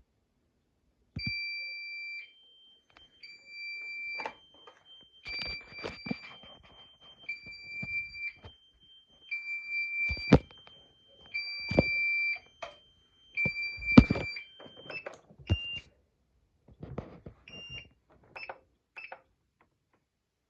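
Fire alarm system on a Signal-20M control panel sounding its alarm: a two-tone signal alternating between a lower and a higher tone about once a second, with sharp clicks and knocks over it. Near the end the tone stops and a few short beeps follow.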